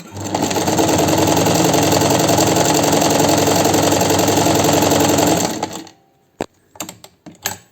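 Chaika 143A sewing machine running steadily at speed for about five and a half seconds as a test seam is sewn after its repair, then slowing and stopping. A few sharp clicks follow near the end.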